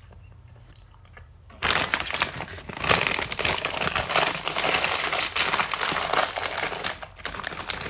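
A snack chip bag crinkling loudly as it is handled, starting about a second and a half in and carrying on as a dense, continuous crackle.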